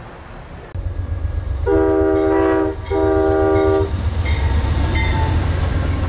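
Diesel locomotive's multi-chime air horn sounding two blasts of about a second each, over the steady low rumble of the train, which starts abruptly under a second in.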